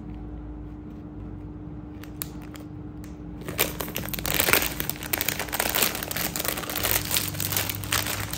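Clear plastic jewellery pouch crinkling and rustling as a pearl-and-bead necklace set is pushed back into it. It starts about three and a half seconds in, after a few light ticks.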